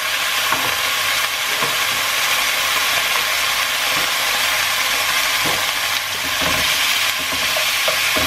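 Diced raw beef and onions sizzling steadily in hot oil in a pot, with a few soft knocks and scrapes of a spatula now and then.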